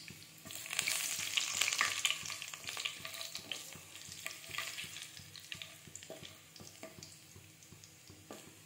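Garlic cloves and kasuri methi (dried fenugreek leaves) sizzling and crackling in hot oil in a non-stick kadhai, stirred with a wooden spatula. This is the tempering step, frying until the garlic turns reddish. The crackle is strongest in the first few seconds and then slowly dies down.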